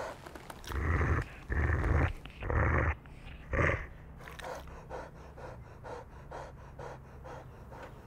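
Boxer dog making four short, deep, loud vocal sounds in the first four seconds, then panting at about three breaths a second.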